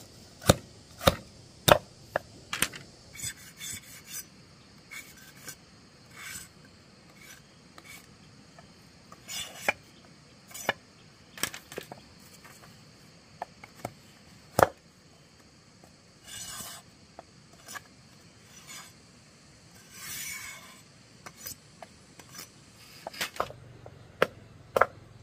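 Hand work on wood: scattered sharp knocks and taps, with several short rasping scrapes, each about a second long.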